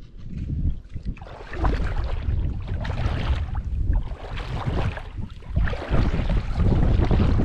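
Wind rumbling on the microphone over shallow seawater sloshing and splashing in uneven surges.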